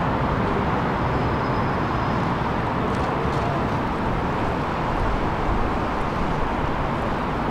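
Steady urban background noise: an even, continuous rumble with no distinct events.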